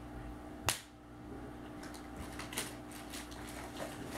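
One sharp click from a small plastic pump bottle being handled, followed by faint scattered clicks and rustles of handling, over a low steady room hum.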